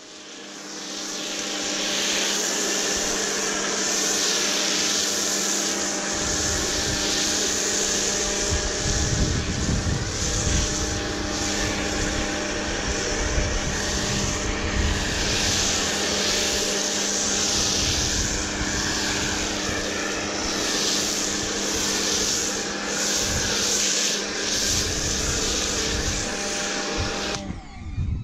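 GreenWorks 1500 PSI electric pressure washer running steadily with a humming pump, under the loud hiss of an MTM PF22 foam cannon spraying snow foam. It starts up as the trigger is pulled and cuts out briefly near the end.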